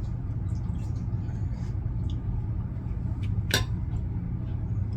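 A steady low hum with a few faint small clicks, and one sharper click about three and a half seconds in.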